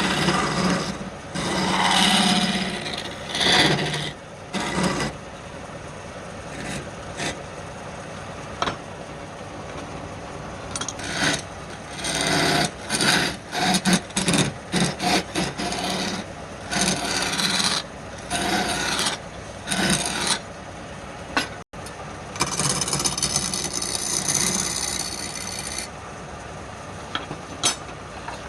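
Wood being worked with a hand abrasive tool: irregular runs of short scraping strokes, some quick and some longer, over a faint steady hum.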